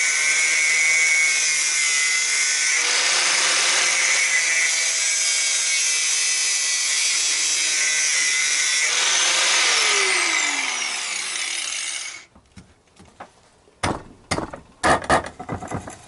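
Angle grinder with a cut-off disc cutting through a metal tube, a loud steady high whine of disc on metal. About ten seconds in it is released and spins down in a falling whine, stopping about twelve seconds in, followed by a few knocks and clatters as the cut tube is handled.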